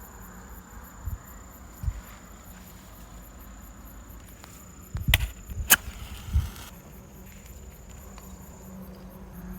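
Insects chirping steadily with an even, rapid pulsing, with a few low knocks and one sharp click about halfway through.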